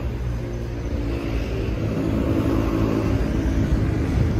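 A road vehicle's engine running with a steady low hum, gradually growing louder.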